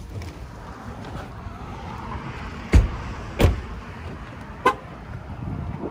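Car doors thumping shut twice, a little over half a second apart, then a short sharp beep, over a steady background of car and street noise.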